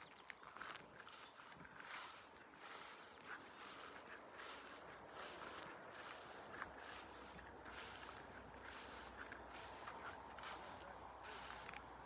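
Footsteps of a person walking at a steady pace, about two steps a second, over a continuous high-pitched drone of insects.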